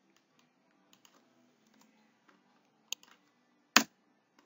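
A few sparse, faint clicks of computer keyboard keys and a mouse, with a sharper click about three seconds in and a louder one near the end.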